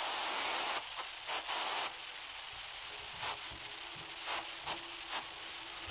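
Steady hiss and crackling static from a phone video call whose connection is breaking up, with irregular short bursts of noise and no intelligible speech.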